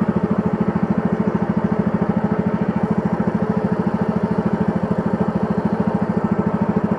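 Small boat engine running steadily, a rapid even putter that pushes the narrow wooden boat along the creek.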